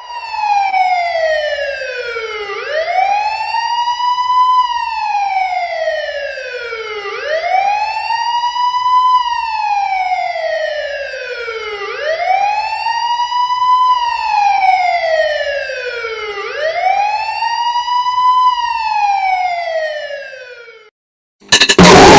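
A siren wailing in slow sweeps, each falling over about two and a half seconds and rising back over about two, four times over. It fades out, and after a brief gap a blast of loud, harsh noise music cuts in at the very end.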